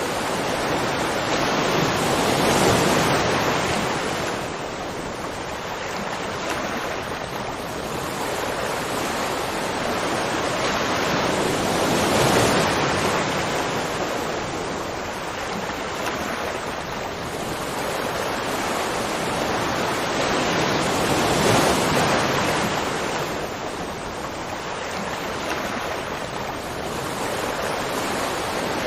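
Continuous rushing water, a broad roar that swells and eases slowly about every nine seconds.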